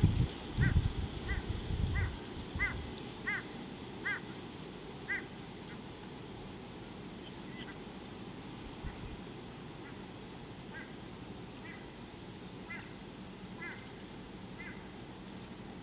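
A waterfowl honking repeatedly: short calls about every two-thirds of a second for the first five seconds, then fainter, more widely spaced calls. Low rumbling in the first two seconds, with faint high chirps from small birds.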